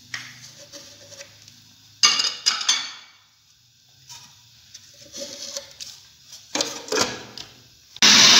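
Clinks and knocks of a spoon and lid on a glass food-processor bowl as spices go in and the lid is fitted; near the end the food processor's motor starts up loudly and steadily, grinding raw chicken with spices for kofta.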